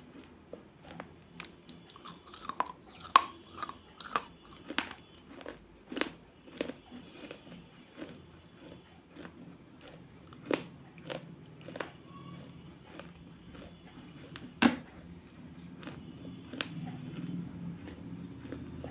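Close-up mouth sounds of a person biting and chewing hard, brittle pieces, with sharp irregular crunches; the loudest crack comes near the end. A low steady rumble grows in behind it in the last few seconds.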